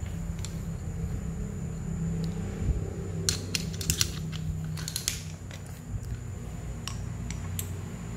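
Metal hand tools clinking and clicking as they are handled and set down, with a cluster of sharp clicks about three to five seconds in and a few single clicks near the end, over a steady low hum.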